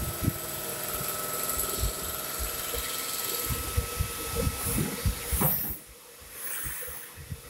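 Vertical machining center's spindle running a pocket cutter through a piston: a steady machining whine with several held tones. About five and a half seconds in comes a sharp burst, then the machining sound drops away as the cutter comes clear of the piston.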